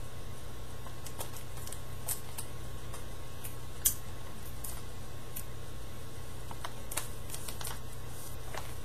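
Paper and tape being handled: scattered faint ticks and rustles, with one sharper tick about four seconds in, over a steady low hum.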